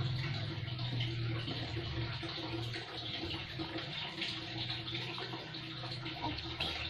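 Steady low hum and hiss of room background noise, with a few faint small ticks.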